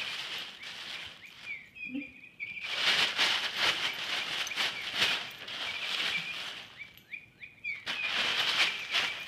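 Dog thrashing and shaking a cat toy: bursts of rustling and rattling, twice, with short high chirps scattered through.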